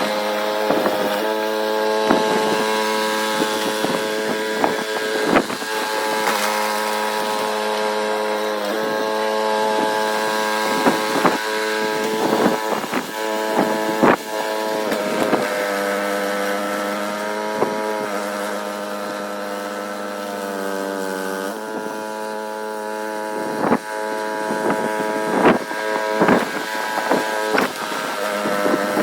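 Gas snowblower engine running steadily under load, with many sharp clicks and knocks over it; its pitch sags slightly a little after halfway, then shifts.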